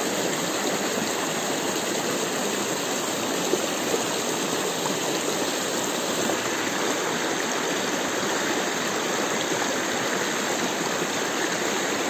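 Shallow rocky stream rushing steadily over stones and through small white-water runs.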